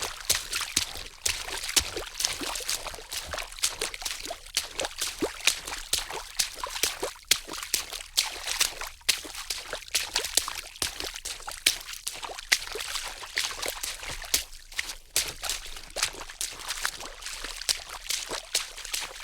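Water splashing in a quick, irregular series of splashes, several a second.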